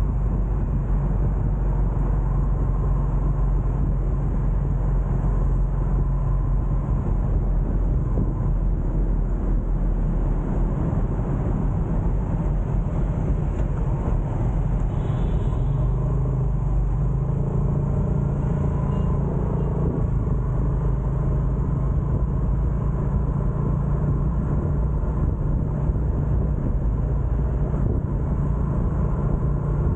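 Steady low rumble of a motorbike's engine and road noise while riding through light city traffic. The engine note shifts about halfway through as the bike eases off and picks up again.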